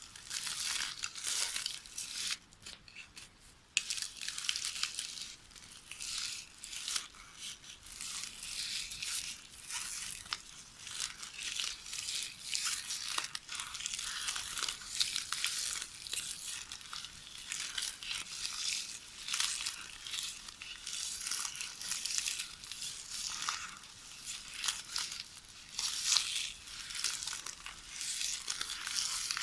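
Magnetic tape from a VHS videotape being knitted by hand, rustling and crackling in a continuous run of short crinkly rustles, with a brief lull about three seconds in.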